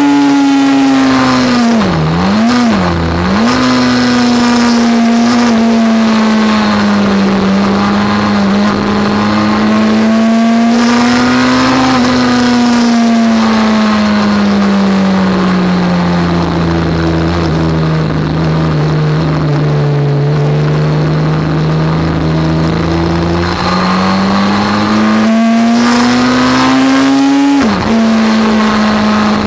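Suzuki GSX-R1000 L8's inline-four engine running hard at high revs on track, its note rising and falling slowly with the throttle. The pitch dips sharply twice about two to three seconds in and drops suddenly once near the end, as at a gear change.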